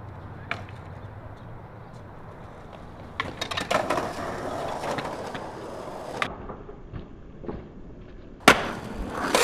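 Skateboard wheels rolling on concrete, with several sharp clacks from the board and a loud landing impact near the end.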